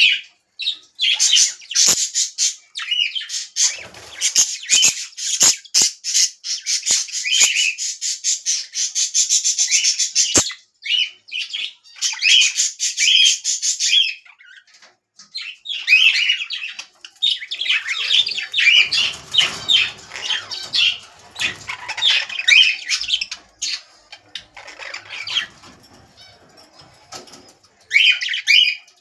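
Small pet parrots chattering and squawking in bouts of quick, high calls, with a fast run of repeated calls about eight to ten seconds in and short lulls between bouts.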